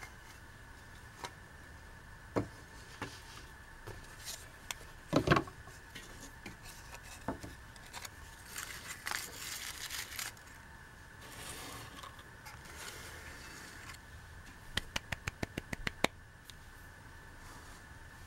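Hands handling dot-painted eggs in a cardboard box with a fibre nest and a paper slip: scattered scraping and rustling, with a sharp knock about five seconds in and a quick run of light taps, about six a second, near the end. A faint steady high whine runs underneath.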